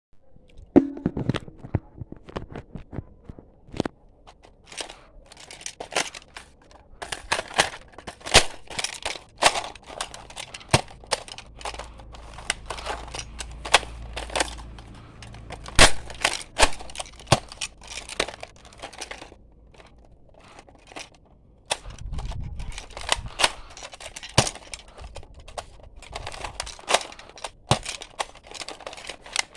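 Plastic X-Shot Max Attack foam-dart blaster being reloaded and handled: many sharp, irregular plastic clicks and clacks from its mechanism and parts, with handling rustle in between.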